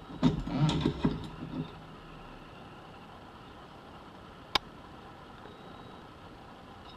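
Clattering and knocking of a handmade aluminium hem folder being handled against a sewing machine's bed and needle plate for the first second and a half, then a single sharp click about four and a half seconds in, over a steady low hum.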